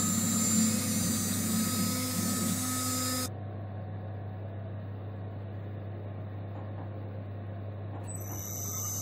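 Small DIY CNC mill running, its spindle giving a steady hum with a high whine. About three seconds in the whine and part of the hum cut off abruptly and the level drops, leaving a quieter steady low hum; some higher whine comes back near the end.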